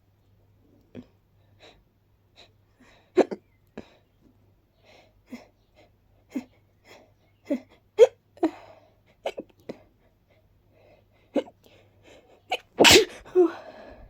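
A person hiccuping over and over, short sharp hiccups about every half second to a second, then one loud sneeze near the end: an allergic sneeze from pollen.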